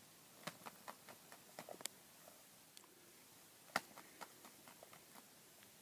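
Faint, irregular clicks and ticks in quick succession, with one sharper click about four seconds in.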